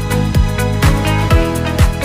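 Electronic dance music with a steady kick-drum beat, about two beats a second, over a bass line and chords.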